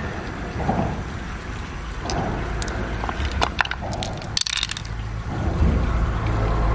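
Hands squeezing pearls out of the soft wet flesh of an opened freshwater river mussel, with wet squelching, then a run of small clicks as the pearls drop into the mussel's pearly half-shell about three to four seconds in.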